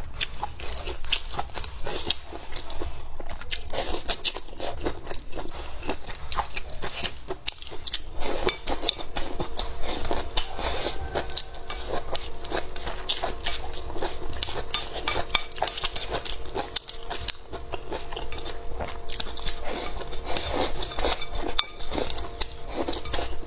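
Close-miked eating: chewing fried tiger-skin chili peppers, century egg and rice porridge, with wooden chopsticks clicking and scraping against a ceramic bowl in a dense run of small clicks. Near the end, sipping porridge from the rim of the bowl.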